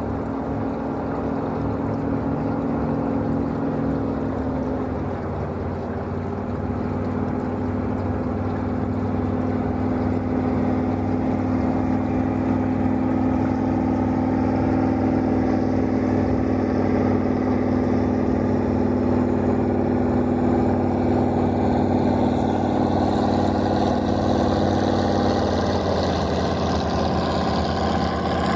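Powerboat engine droning as the boat passes, growing steadily louder over the first half, with its pitch shifting near the end as more water hiss comes in.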